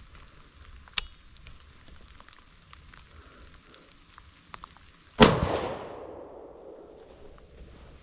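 A single rifle shot about five seconds in: one sharp, loud crack that rolls off over the next two seconds. A sharp click about a second in.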